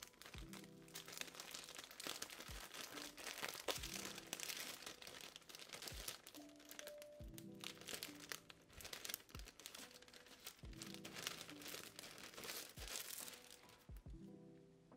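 Clear plastic packaging sleeve crinkling as it is peeled open and handled around a sheet of fibrous string paper, in irregular rustling bursts over lofi background music.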